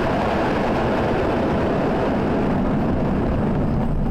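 Loud steady rushing road and wind noise from a moving vehicle, picked up by a dashcam.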